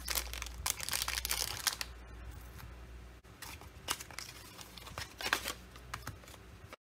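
Clear plastic packaging crinkling as a small electronics module is unwrapped, then the rustle of a cardboard box being opened and a metal-cased switching power supply being handled, with a few sharp knocks.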